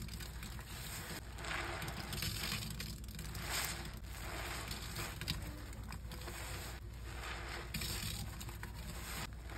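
A soapy smiley-face scrub sponge loaded with lime Ajax lather being squeezed over and over in the hands, the suds squelching and crackling with each squeeze, about once a second.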